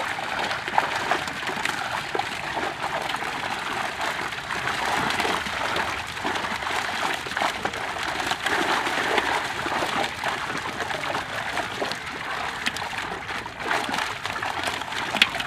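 Pond water splashing and churning as a seine net crowded with Indian major carp (catla, rohu and mrigal) is closed in. The fish thrash and leap at the surface while men wade and work the net, giving many quick overlapping splashes over a continuous sloshing.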